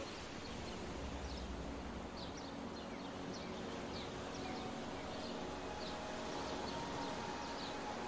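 Ocean surf breaking and washing steadily, with a run of short high bird chirps over it and soft held tones underneath.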